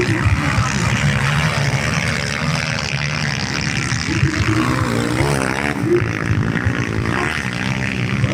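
Motorcycle engines at a velocross race, running and revving steadily with pitch that wavers up and down about halfway through.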